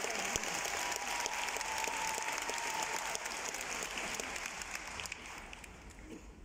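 Large arena audience applauding, the clapping thinning out and fading over the last second or two.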